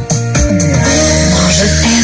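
Music played aloud through Nobsound NS-2000 bookshelf speakers driven by a Nobsound MS-10D MKII valve amplifier. After a brief dip right at the start, sustained gliding melody lines carry on over a steady bass.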